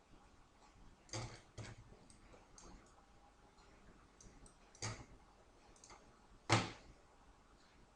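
Computer mouse clicking: scattered sharp clicks, four louder ones with the loudest about six and a half seconds in, and fainter ticks between.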